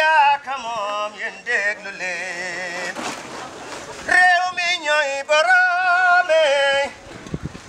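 A man singing solo and unaccompanied, holding long notes with a wavering pitch and short breaths between phrases.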